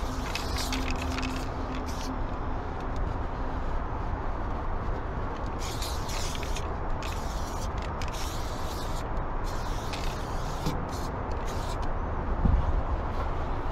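Aerosol spray-paint can hissing in short bursts, each a second or less with pauses between, over a steady low rumble. A few low knocks come near the end.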